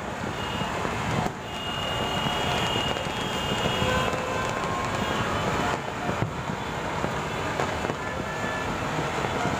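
Distant aerial fireworks going off over a city: a steady, dense din of many explosions with a few sharper bangs standing out.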